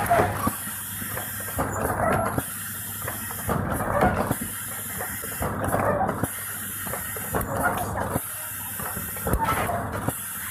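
Automatic carton packing machine running: a steady hum and hiss under mechanical clatter that swells in a repeating cycle about every two seconds as sachets are loaded into cartons.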